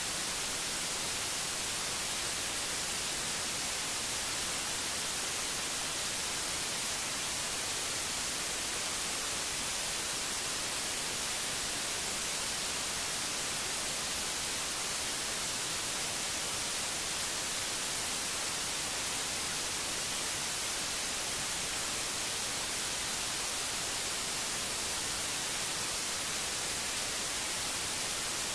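Steady, unbroken static hiss, brighter in the treble, at an even level.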